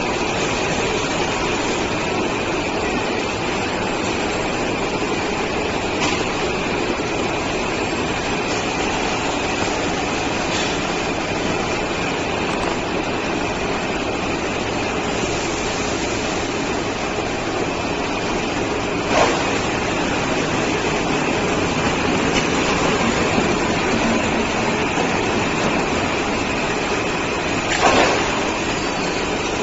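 Gypsum board production line running: a steady mechanical din from the roller conveyors and drive machinery, with a constant high whine through it. A few sharp knocks cut in, the loudest two about two-thirds of the way through and near the end.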